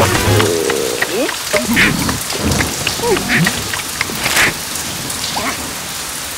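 Heavy rain pouring and pattering, with a few short gliding squeaky cartoon-voice sounds from the huddled characters and one sudden sharp sound about four seconds in.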